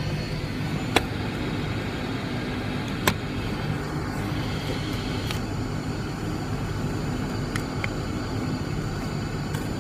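Twin piston engines of a Cessna 340 heard from inside the cabin, running steadily at low power while the aircraft holds short of the runway. Two sharp clicks, about a second in and about three seconds in.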